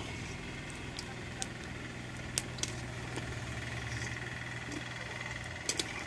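Lentil fritters frying in hot oil in a metal karahi, a steady faint sizzle under a low hum, with a few sharp clinks of the metal strainer and slotted spatula against the pan as the fritters are lifted out.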